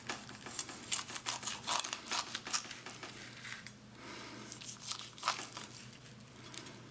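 Carving knife slicing through the crisp roasted skin and breast meat of a whole roast turkey, making a run of short, dry crackles as the skin breaks. The crackles are densest for the first four seconds, with a few more about five seconds in. The crunch is the sign of well-browned, crispy skin.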